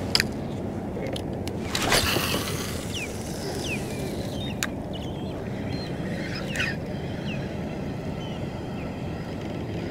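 Several faint, short bird calls over a steady low background noise, with a few sharp clicks and a brief louder rush about two seconds in.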